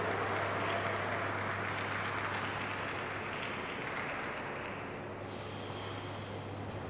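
Audience applause in the ice rink's hall, fading out gradually, over a steady low hum.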